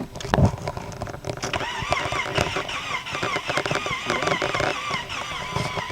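Car engine cranking on its starter without catching, its whine rising and falling about three times a second from about a second and a half in. The engine won't start after a cold snap even with a new battery; the owner suspects an electronic sensor or the engine computer.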